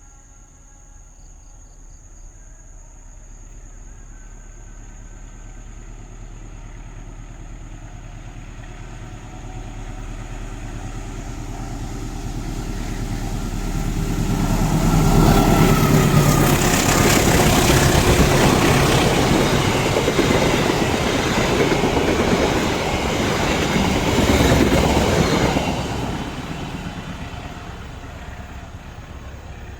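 A train approaching, growing steadily louder, then passing close by for about ten seconds with wheels rumbling and clattering on the rails. The sound drops off suddenly as the end of the train goes by and fades as it moves away.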